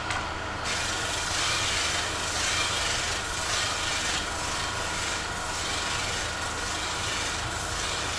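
Electric bench buffing motor running with a steady hum while a wooden pot lid is pressed against its spinning buffing wheel. From just under a second in, this makes a rasping hiss that swells and eases as the piece is turned against the wheel, polishing the finished wood.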